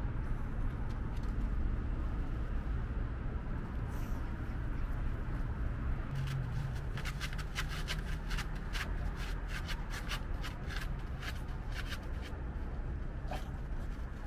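Small dogs' paws pattering and scuffing on artificial turf in a quick run of light clicks and rustles from about six to eleven seconds in, over a steady low rumble of wind on the microphone.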